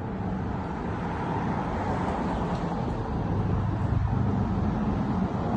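Steady car road noise: engine and tyre hum, growing a little louder a few seconds in.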